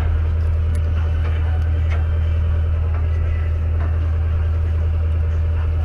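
A fishing party boat's engine running steadily: an even, unchanging low drone, with a few faint ticks over it.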